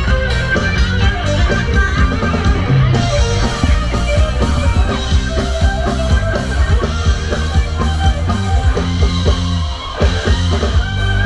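Rock music with guitar and a drum kit over a heavy bass line, playing loud and continuous.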